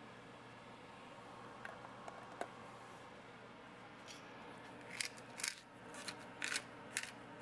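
Pepper being dispensed into a pot of pork: a run of short, scratchy, high-pitched bursts starting about five seconds in, over a faint steady hum.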